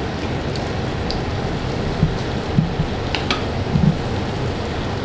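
Tomato pieces sizzling steadily in olive oil in a frying pan, with a few faint pops. They are cooking down on a low flame, giving up their juice.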